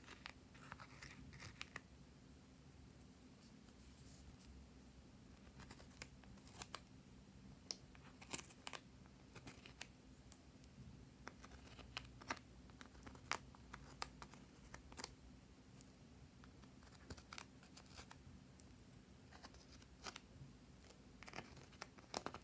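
Faint, scattered clicks and scrapes of a small plastic spatula digging gel eyeshadow out of a makeup palette's pans.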